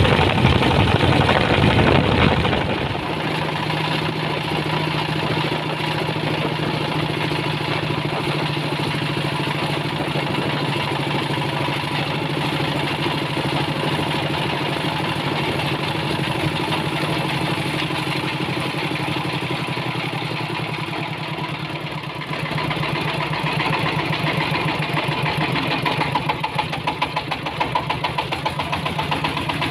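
Diesel engine of a homemade ledok dump truck running while the truck is driven. It is louder for the first two or three seconds, then settles to a steady run.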